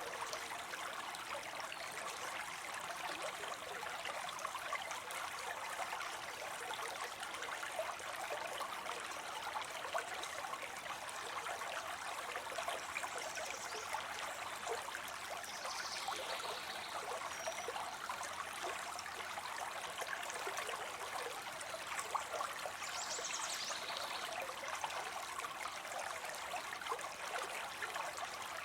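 Small falling water spilling into a pond: a steady splashing trickle.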